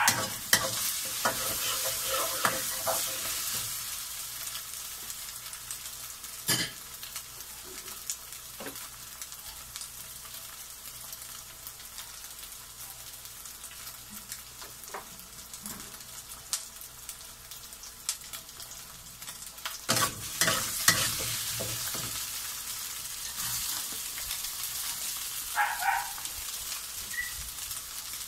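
Chopped onion and crab sticks sizzling in hot oil in a wok, with a metal spatula scraping and tapping against the pan now and then. The sizzle is louder for the first few seconds, quieter through the middle, and swells again about two-thirds of the way in.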